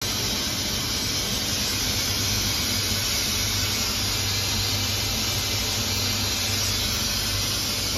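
Hermle C40U 5-axis CNC machining center running, giving a steady hiss with a low hum underneath and no change in pitch.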